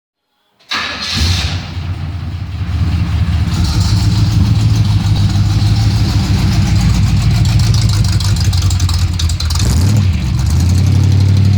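Engine of a 1970 car running through dual glasspack mufflers, a steady deep exhaust rumble with a short rev about ten seconds in. A light lifter tick rides on top, which the owner points to.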